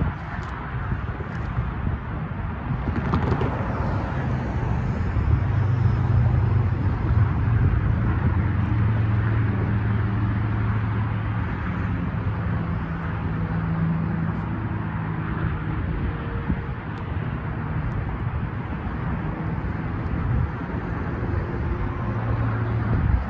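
Road traffic running past, with a steady low engine hum that swells a few seconds in and then eases off.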